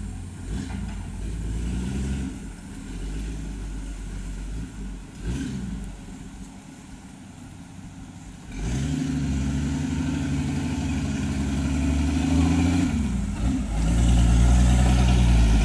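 Toyota Land Cruiser hardtop engine revving under load as the truck, laden with oil palm fruit, churns through deep mud. It runs quieter at first, turns much louder a little past halfway, dips for a moment and then rises again near the end.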